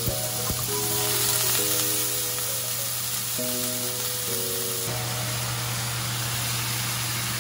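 Bean sprouts and oyster sauce sizzling in a hot frying pan as they are stir-fried with tongs, loudest for the first few seconds, with two light clicks at the very start.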